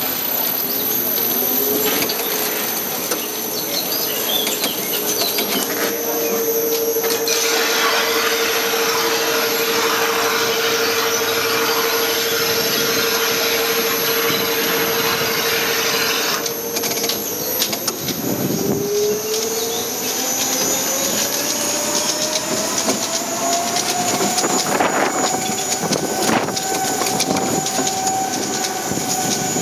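Steel family roller coaster car running along its track, heard from on board: wheels rumbling on the rails with a steady whine that glides up in pitch about two-thirds of the way through and then holds higher.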